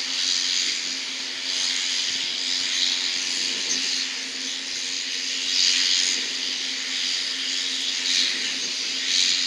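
Hawker 800-series business jet's twin turbofans at taxi power: a steady jet whine and hiss that swells and eases a few times, over a constant low hum.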